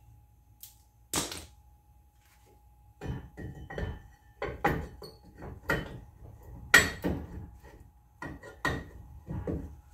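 Ford Mustang rear brake caliper knocking and clanking against the rotor and bracket as it is worked back into place by hand: a string of sharp, irregular metal knocks, some with a short ring.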